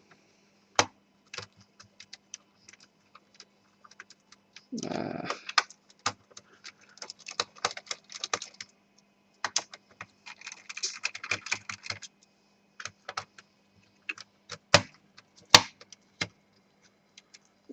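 Screwdriver turning screws out of a laptop's plastic bottom case: irregular small clicks, ticks and scratching of the bit and screws, with a brief louder scuff about five seconds in.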